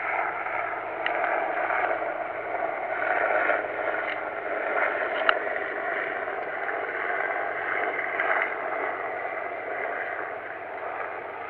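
AH-1 Cobra helicopter flying overhead: a steady drone of rotor and engine. A few short ticks sound over it, the sharpest about five seconds in.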